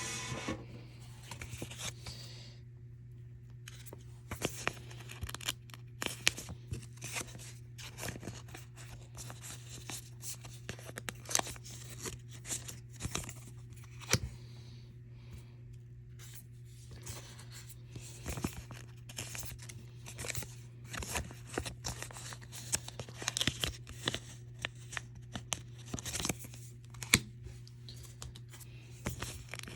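Pokémon cards being slid into thin plastic card sleeves: irregular rustling and crinkling of the plastic with small clicks and taps, over a steady low hum.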